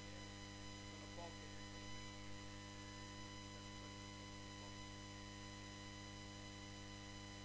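Steady electrical hum and buzz with a faint high whine from the room's microphone and sound system, and faint murmured voices in the background.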